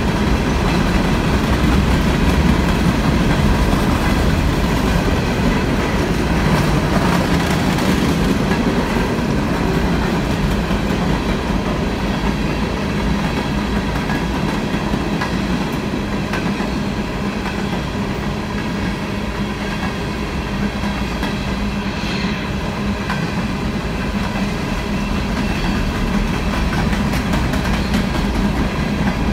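A freight train of CSX coal hopper cars rolling steadily past, its steel wheels rumbling and clacking on the rails.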